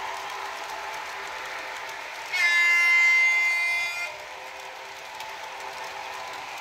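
Zimo sound decoder in an H0 model of an ET22 electric locomotive, playing one steady horn blast of nearly two seconds starting a little over two seconds in, over the locomotive's steady running hum.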